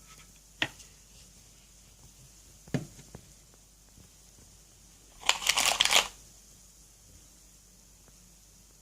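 Hands handling craft materials: two light clicks, then a brief burst of crinkling rustle about five seconds in.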